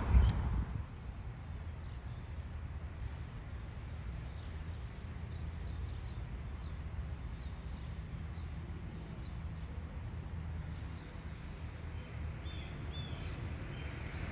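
Outdoor ambience: a steady low background rumble with a few faint bird chirps, two clearer chirps coming close together near the end. A louder rush of noise fills the first second.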